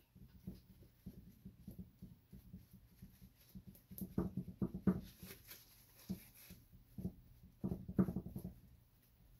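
Paper towel dabbing and rubbing on a wet epoxy-coated art panel, lifting off ink: quiet, irregular soft dabs, with bunches of firmer dabs about four seconds in and again around eight seconds.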